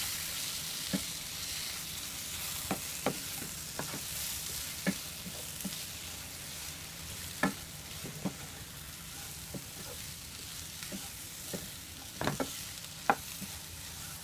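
Fried chicken pieces sizzling in masala in a non-stick kadai as a spatula stirs them, with irregular knocks and scrapes of the spatula against the pan. The sizzle is stronger at the start and fades to a faint hiss.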